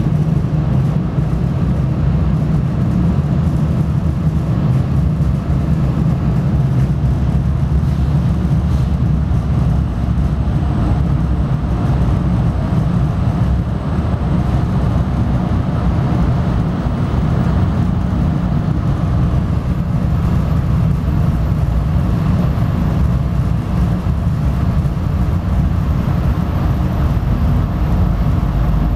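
Steady low rumble of an MBTA commuter rail train, heard from inside the passenger coach as it pulls into a station.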